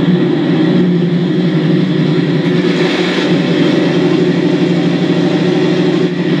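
Recorded tank-engine sound from the model's Benedini sound unit, played through its onboard speakers and running steadily under throttle, with a slight swell about halfway through.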